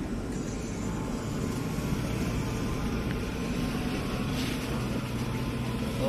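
Toyota Fortuner 4x4 SUV on the move, a steady engine and road rumble.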